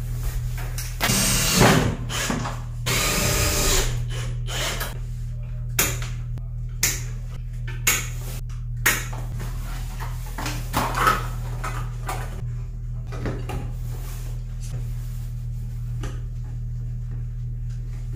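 Cordless drill-driver driving screws into exterior wall cladding in two short runs, about one and three seconds in, followed by several separate knocks and clicks as parts are handled and fitted against the wall, over a steady low hum.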